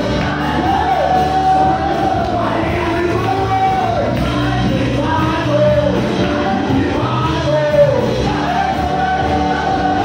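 Live worship song: singers lead through microphones over keyboard accompaniment, amplified through a PA in a hall. The long sung notes slide down in pitch at their ends.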